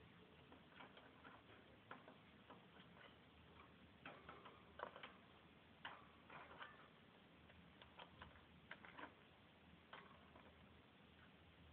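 Faint, irregular small clicks and scratches of a baby peach-faced lovebird moving about under a fleece blanket in its cage, coming in clusters a few seconds in and again near the end.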